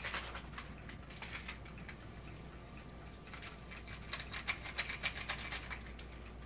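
Light clicks and small rattles from hands handling kitchen items at a counter, with a quick run of ticks about four seconds in.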